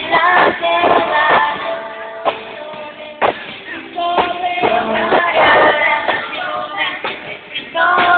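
A small music group playing and singing a Catholic worship song live, voices over instrumental accompaniment with recurring sharp beats.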